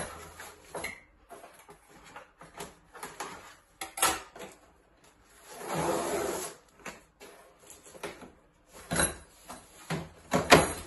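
Cardboard box being cut open with scissors: a longer scrape about halfway through as the blade is drawn along the taped seam, among scattered knocks, taps and rustles of the cardboard being handled and the lid folded back.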